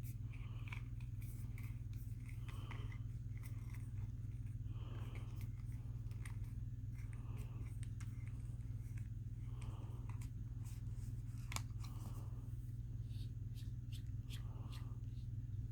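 Small clicks and brief scrapes of an Eleaf Aster 2 vape mod being taken apart by hand, its tank unscrewed and parts pulled off, over a steady low hum.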